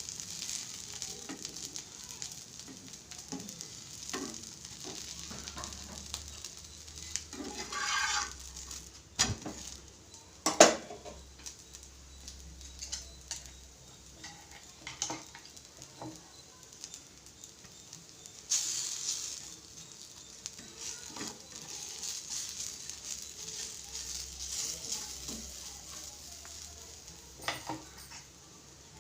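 A pan sizzling on the stove while a spoon stirs it, scraping and knocking against the pan now and then. The loudest knock comes about ten and a half seconds in.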